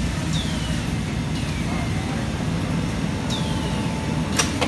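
Steady low hum of factory machinery, with a few short squeaks falling in pitch and a sharp click near the end.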